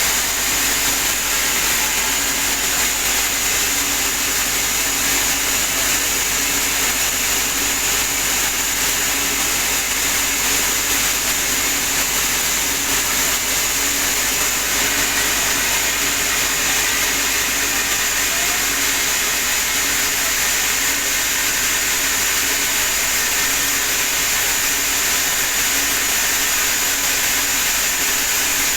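Sawmill saw running steadily, a continuous machine noise with a high whine over a hiss that holds even throughout.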